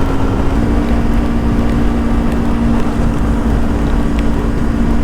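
Yamaha R25 V2's parallel-twin engine running at a steady cruising speed, its note holding even, over continuous wind and road noise.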